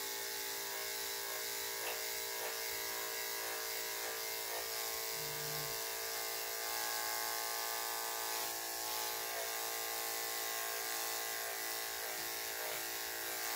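Corded electric dog grooming clippers running with a steady, even buzz as they trim the fur on a small dog's leg.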